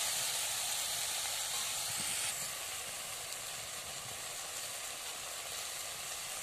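Chopped greens, potato and aubergine with fish sizzling in a wok (kadai) on the fire, a steady frying hiss that eases a little after about two seconds.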